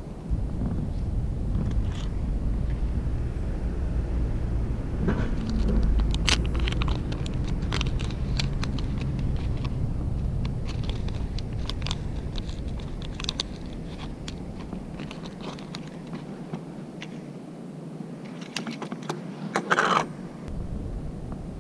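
Small clicks, taps and rustles of hands handling fishing tackle (line, plastic floats and a hook packet) over a steady low rumble that thins out about two-thirds of the way through. A louder rustle comes near the end.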